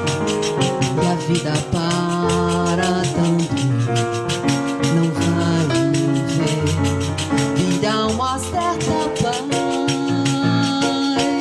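A woman singing with a Roland electronic keyboard accompaniment of sustained chords, over a steady, even percussion beat.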